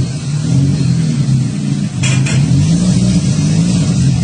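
Small van's engine running at low speed as it creeps in reverse, its pitch wavering up and down with the throttle. A short burst of hiss about halfway through.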